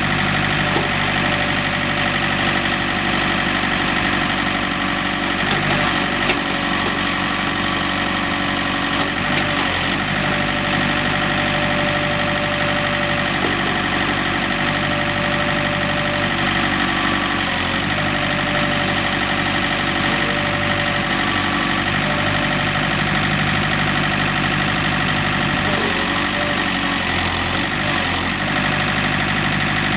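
Diesel engine of a John Deere 110 backhoe loader running steadily, its tone shifting a few times.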